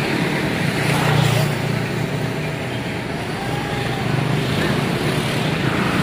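Hino truck's diesel engine running steadily as the truck rolls slowly forward, a continuous low rumble.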